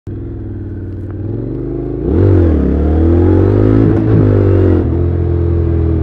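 Honda NC750X's parallel-twin engine through its stock exhaust, heard from the rider's seat while riding. It runs steadily at first; about two seconds in the throttle opens, the engine gets louder and its pitch rises. Near five seconds it eases off to a steadier, lower drone.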